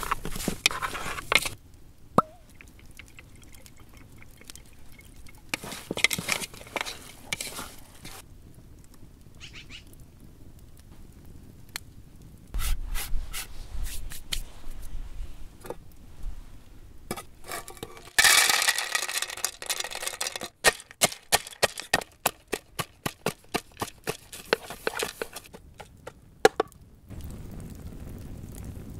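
Food-preparation handling sounds: hands working salted chunks of raw meat in a metal pot at the start, then rustling, and a run of sharp knocks on a wooden cutting board, about three a second for several seconds.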